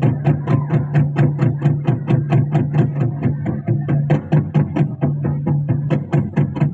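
Instrumental music: a quick, even pulse of short percussive notes, about five a second, over a held low note.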